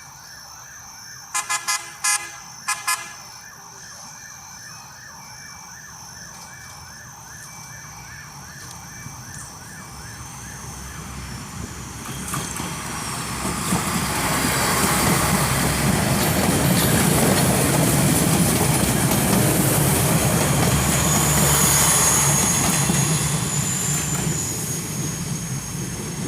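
A fast repeating warning tone, about three pulses a second, for the first ten seconds or so, with a few short horn blasts about two seconds in. Then a diesel VLT light-rail train approaches and passes, its engine and wheel noise building from about ten seconds in and loudest through the second half.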